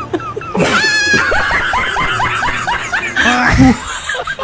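High-pitched laughter, a quick run of rising 'ha' sounds about five a second, after a brief shriek about a second in. A short, loud low blast comes about three and a half seconds in.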